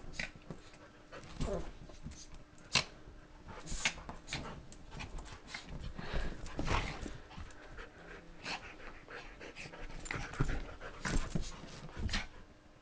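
Dogs play-fighting on a couch: panting with irregular scuffling bursts as they wrestle on the cushions.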